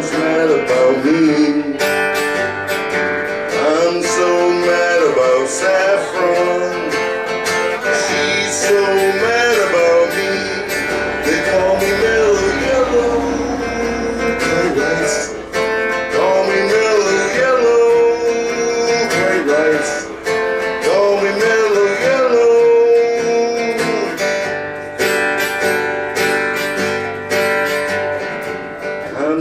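Live band music in an instrumental passage: a guitar lead of bending, sliding notes over strummed guitar chords, with steady percussion hits.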